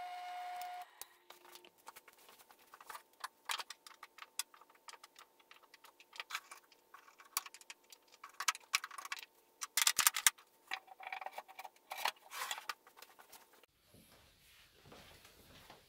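Steel router bits being set into drilled holes in a wooden holder block: a long run of irregular clicks and clinks of metal on wood and bit against bit, loudest in a cluster around the middle. A drill press motor hum stops about a second in.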